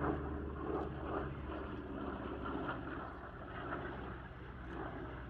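CAC Boomerang fighter's Pratt & Whitney R-1830 Twin Wasp radial engine running steadily at low power on the ground, propeller turning.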